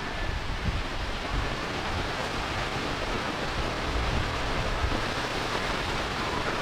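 Steady rushing noise of wind on the microphone, with a gusty low rumble underneath.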